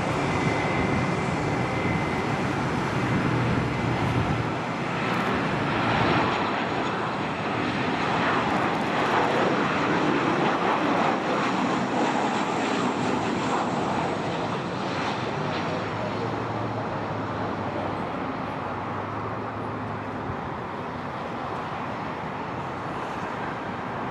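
Jet engine noise from a Boeing 737-800's two CFM56-7B turbofans as the airliner comes in low on landing approach. It is a steady rushing roar that swells as the plane passes, loudest from about six to thirteen seconds in, then eases off as it heads down the runway.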